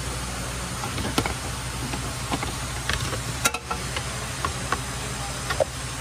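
Scattered light clicks and knocks of hands handling wiring and parts in a car engine bay, the sharpest about halfway through, over a steady low hum.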